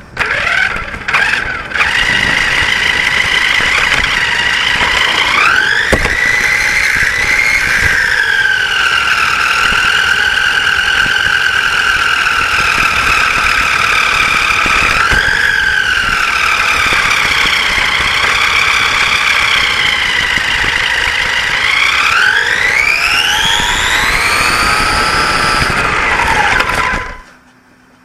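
Radio-controlled racing saloon car's motor whining close up, its pitch rising and falling with the throttle, with a long climb near the end, then cutting off suddenly.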